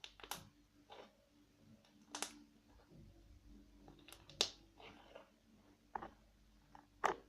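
Homemade glitter slime being squished and worked in the hands, making irregular soft clicks and pops.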